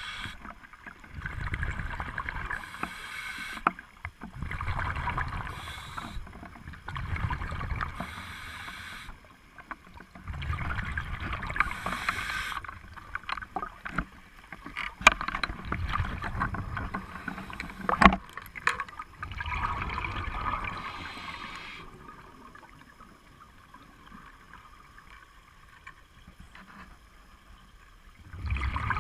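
Scuba diver breathing through a regulator underwater, the exhaled bubbles rushing and gurgling in surges every two to three seconds. A few sharp knocks come around the middle, and the breathing pauses for several seconds near the end.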